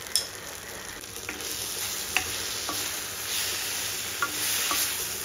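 Drumstick pieces, tomatoes and spice powders sizzling in a hot stainless-steel kadai while a wooden spatula stirs them, with several short knocks of the spatula against the pan. The sizzling grows a little louder after the first second or so.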